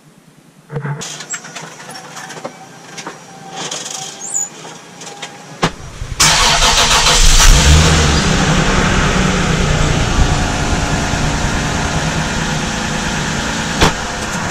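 Toyota Cressida's engine starting: a few clicks, then it catches about six seconds in, flares up briefly and settles into a steady idle.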